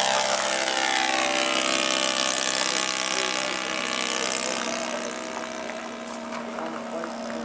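Radio-controlled model airplane engine and propeller during a close pass: loud for the first three seconds or so, then fading as it flies off. A steady engine hum continues underneath.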